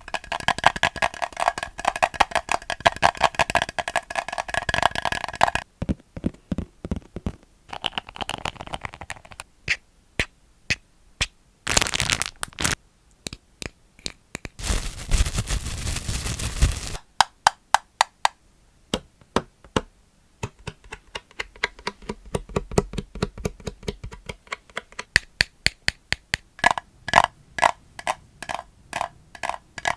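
Fingertips or nails tapping rapidly on hard, hollow plastic, with a ringing hollow tone in the fast runs. Slower, sparser taps come in the middle, along with two short bursts of scratching or rubbing, the longer one about halfway through.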